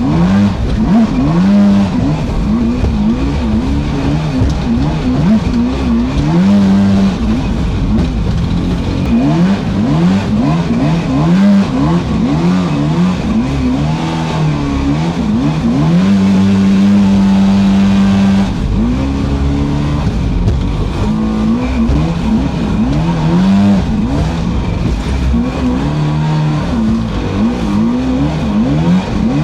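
Electric motor of a radio-controlled boat, its whine rising and falling again and again as the throttle and load change in rough flood water. The pitch holds steady for about two seconds a little past the middle.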